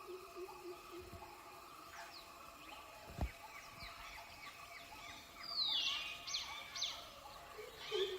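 Chorus of wild birds calling: many short falling chirps over a pulsing low call, with loud descending whistled calls in the second half. A single low thump about three seconds in.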